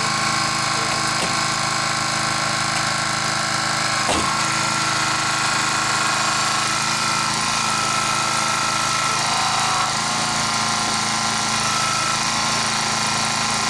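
Small engine of a hydraulic rescue-tool power unit running steadily, driving a hydraulic spreader or cutter worked on a car door; its note shifts slightly a few times. A single sharp knock about four seconds in.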